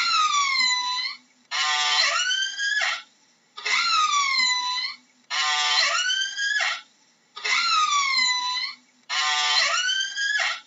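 Orca (killer whale) calls, six in a steady run about one every two seconds. They alternate between two kinds: one opens with a rapid buzzy pulsing and then rises in pitch, the other falls in pitch and turns up again at the end.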